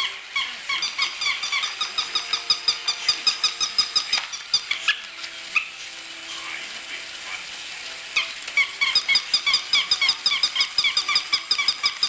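Electronic plush toy puppies yapping: rapid runs of short, high-pitched yips, several a second. They stop for a few seconds near the middle and start again about eight seconds in.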